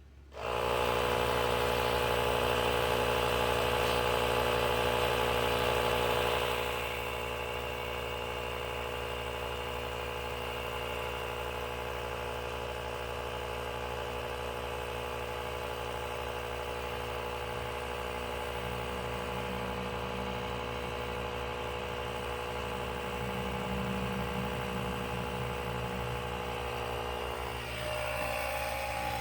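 A motor starts suddenly and runs with a steady hum of several fixed tones. It is loudest for about the first six seconds, then settles a little quieter, and its tone shifts shortly before the end.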